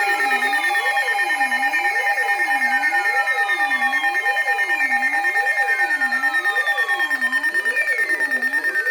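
Layered electronic alarm tones: steady high tones with a low tone sweeping up and down about once a second and falling whistle-like glides repeating every two to three seconds. The lower steady tone drops out about seven seconds in.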